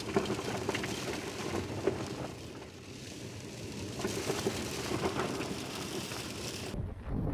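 Rain falling on the Jeep in a storm, heard from inside, a steady hiss dotted with many small drop hits. Near the end it cuts suddenly to low wind buffeting the microphone.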